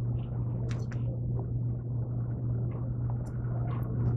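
Metal kitchen tongs peeling the soft skin off cooked pumpkin, with a few light clicks, two of them about a second in, over a steady low hum.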